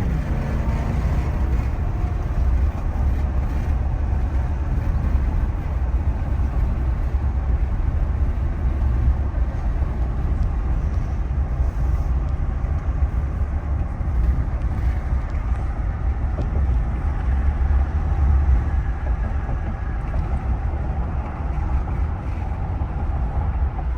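Steady road and wind noise inside the cab of a 2023 Ram 1500 Limited pickup cruising at speed, a low rumble with wind hiss over it.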